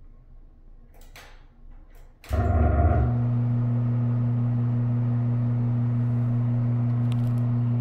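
Older Broan bathroom exhaust fan starting up: after a couple of clicks, it kicks on about two seconds in with a brief rattle lasting under a second, then settles into a steady low hum.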